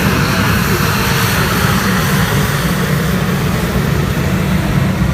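Display aircraft engine noise as it flies past: a heavy low rumble, with a higher rushing sound that fades after about three seconds.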